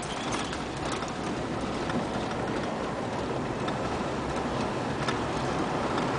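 Car driving slowly through town streets, heard from inside the cabin: steady engine and road noise with a few light clicks and rattles.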